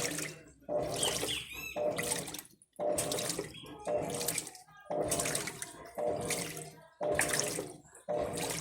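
Electrolux LTC15 top-loading washing machine agitating a full drum of water on its normal, non-turbo setting. The water sloshes in a steady rhythm, about one surge a second, as the agitator swings back and forth.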